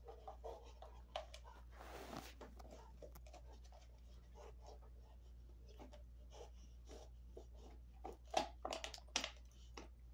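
Dog gnawing a cheek roll chew: irregular soft clicks and crunches of teeth on the chew, coming thicker and louder for a couple of seconds near the end.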